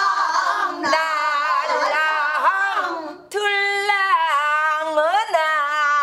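A woman singing pansori in a strong voice, the pitch sliding and wavering on long held notes. About three seconds in, a single sharp knock, typical of the drumstick striking the wooden rim of a buk barrel drum.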